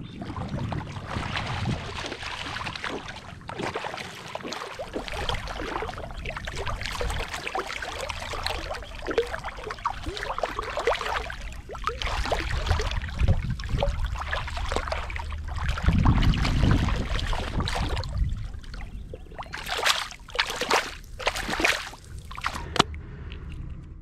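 Water splashing and sloshing as a hooked ray thrashes in shallow water while being landed, with a few sharper slaps near the end.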